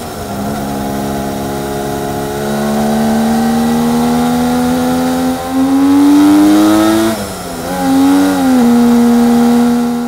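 Kawasaki KH250's 250cc three-cylinder two-stroke engine howling through its exhausts and three carburettors as the bike is ridden. The pitch climbs for about seven seconds, drops sharply, wavers briefly, then holds steady.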